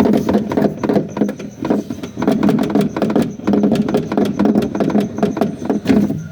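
Loose plastic part beside a car's fuel hose rattling, a rapid irregular clatter of clicks over a steady low hum. This is the noise it makes when the car is driven.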